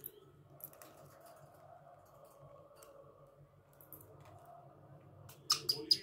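Budgerigars clicking and tapping on a plastic bath dish and wire cage: a few soft clicks, then four sharp clicks in quick succession near the end. A faint steady hum runs underneath.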